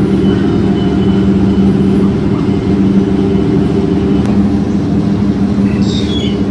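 Steady low engine drone with a constant hum. Near the end, birds start chirping over it.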